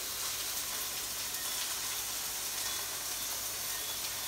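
Steady sizzling hiss of food frying, with a few faint crackles.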